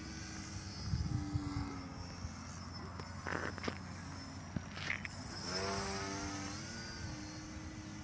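Electric motor and propeller of a 1100 mm foam RC Cessna 162 model airplane droning in flight, its pitch sliding down and up about two-thirds of the way through, over a thin high whine.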